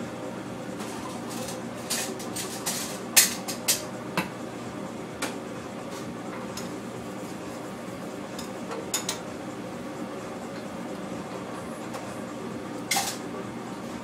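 Scattered clinks and clatters of metal utensils and dishes, loudest about three seconds in with a few more later, over the steady hum of commercial kitchen equipment.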